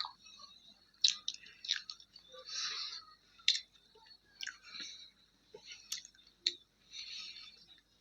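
Close-miked chewing of a mouthful of food, with sharp wet mouth clicks and smacks scattered through it and a couple of longer squelchy stretches.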